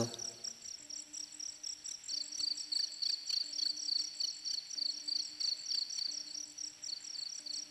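Crickets chirping in a steady, fast-pulsing high trill, night ambience, with a low hum that comes and goes about every second and a quarter.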